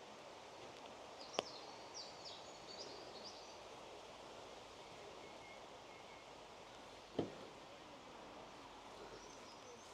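Faint, steady woodland background hiss with a few short high bird chirps. There is a sharp click about a second and a half in and a dull thump about seven seconds in.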